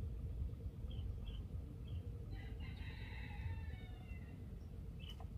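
A rooster crowing once, a call about two seconds long, falling slightly in pitch, heard faintly over a steady low rumble.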